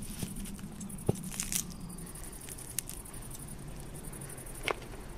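Faint, quiet outdoor film-scene ambience, with a handful of short soft clicks and rustles scattered through it, the sharpest one near the end.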